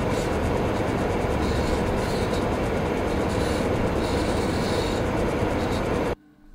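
Steady, dense noise drone with a low hum, unchanging in level, that cuts off suddenly about six seconds in.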